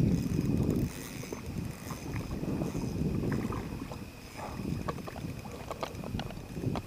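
An angler reeling in and landing a small brown bullhead: low rustling handling noise that swells and fades, with many small scattered clicks and knocks.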